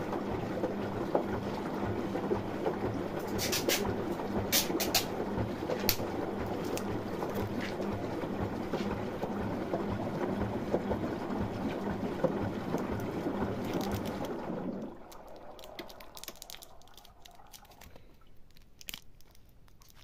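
Water running in a Far washing machine, with a steady electric hum and a few sharp clicks; the water and hum stop about 15 seconds in.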